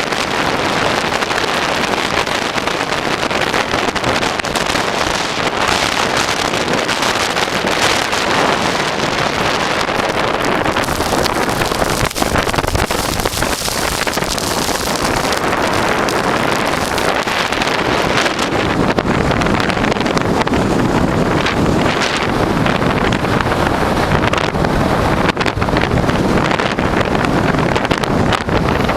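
Strong wind blowing hard and buffeting the microphone: a loud, steady rushing noise.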